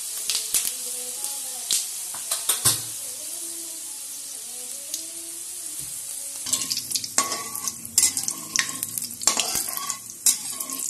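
Whole coriander seeds sizzling in hot oil in a steel kadhai, a steady hiss. About six and a half seconds in, a metal ladle starts stirring and scraping the pan, adding many sharp clicks and scrapes over the frying.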